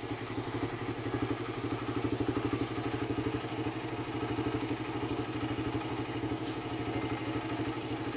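Suzuki Raider 150 motorcycle's single-cylinder engine idling steadily with an even pulsing exhaust, its 28 mm Keihin carburetor freshly tuned to cure bogging on throttle and hard starting.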